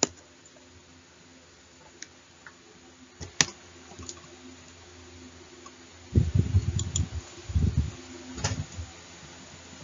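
Faint steady hum with a handful of sharp single clicks, typical of desk and computer clicks, and a cluster of low knocks and rumbles from about six to eight seconds in.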